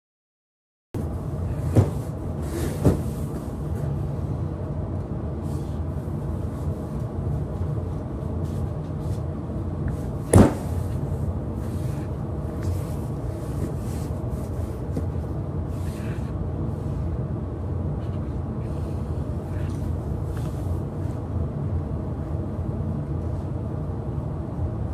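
A steady low rumble with a few sharp clicks or knocks, three of them standing out and the loudest about ten seconds in.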